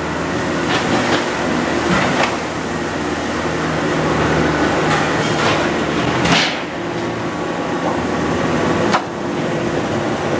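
Steady factory machinery drone with several sharp metal clanks and clatters, the loudest about six seconds in, from stainless steel sheets and pressed sinks being handled.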